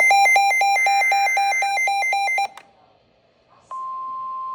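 Fast electronic alarm beeping, about five beeps a second, with a short burst of SAME header data tones under it; it stops, and after a brief pause about three seconds in, the steady 1050 Hz NOAA Weather Radio warning alarm tone starts, signalling that a warning follows.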